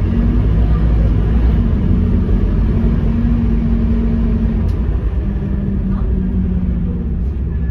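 Scania K230UB city bus under way, heard from inside the passenger cabin: the rear-mounted five-cylinder diesel engine drones steadily over a continuous low road rumble, its hum shifting slightly in pitch about halfway through.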